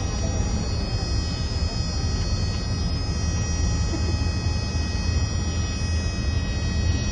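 Steady low rumble of a bus's engine and tyres on the road, heard from inside the moving bus.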